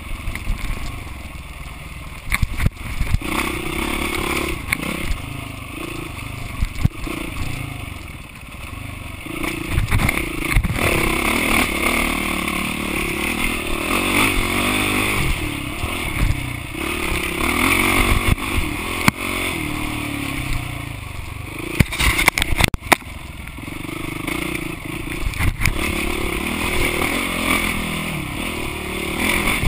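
Dirt bike engine revving up and down as it rides a rough trail, with frequent knocks and rattles from the bike bouncing over bumps.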